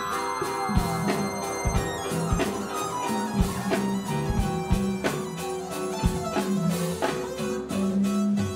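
Live band playing an instrumental groove on drum kit, electric bass and keyboards, with a falling electronic pitch sweep in the first couple of seconds.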